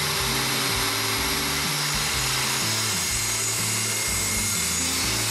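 A metal-cutting chop saw running steadily and cutting through a metal tube, heard with background music.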